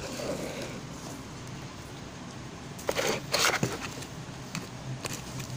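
Crinkling, rustling handling noise as a plastic-gloved hand moves toy dollhouse furniture, in a short cluster about three seconds in, over a steady faint hum.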